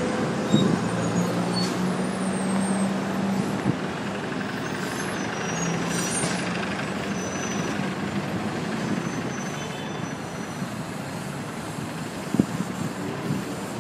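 Busy street traffic beside a bus station: a bus engine running with a steady low hum under the road noise, and sharp knocks about half a second in and again near the end.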